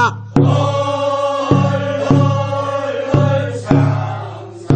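Korean rice-paddy weeding work song (non-maeneun sori): a group of singers chanting the chorus refrain together, with a barrel drum struck in a steady beat.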